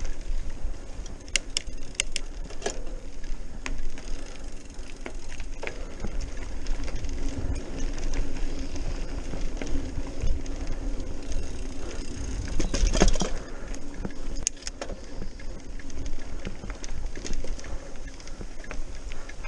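Trek Marlin 5 mountain bike riding fast down a dirt trail: steady tyre and wind noise, with scattered clicks and rattles from the bike over bumps. The loudest rattle comes about 13 seconds in.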